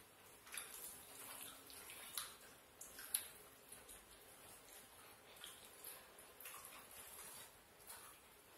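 Quiet, scattered soft rustles and taps of fingers tearing parotta and mixing it with curry on a banana leaf, with one sharp click about three seconds in.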